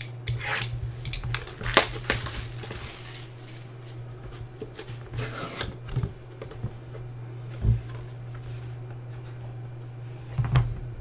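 A utility knife slicing through the plastic shrink-wrap of a sealed trading-card box, with the wrap crinkling and tearing, for the first few seconds. Then the cardboard box is handled and its lid lifted, with a few light knocks, over a steady low hum.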